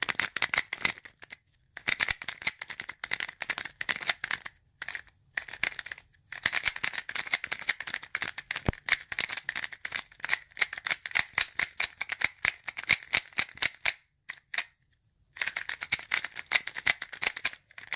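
Magnetic 2x2 speed cube being turned fast close to the microphone: quick runs of plastic clicks and clacks as the layers snap into place under strong magnets. There are a few brief pauses, and a longer one near the end.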